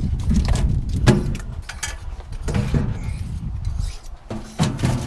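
Crappie knocking and rattling onto a steel fish-cleaning table as they are shaken out of a landing net: a few sharp knocks over a low, steady rumble.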